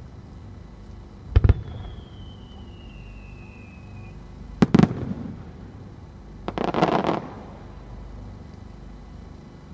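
Aerial firework shells: a sharp launch bang, followed by a thin whistle falling slightly in pitch for about two and a half seconds, then another bang about three seconds later with a trailing rumble. A short burst of dense crackling follows about two-thirds of the way through.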